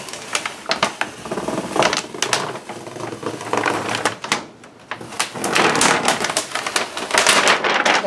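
Heavy appliance-grade silver contact paper being peeled off a dishwasher door, the stiff vinyl sheet crinkling and crackling in irregular bursts as it pulls away and creases.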